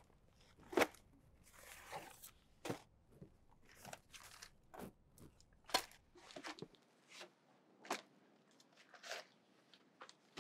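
Faint, irregular crunching and rustling noises with short sharp clicks, spaced about a second apart.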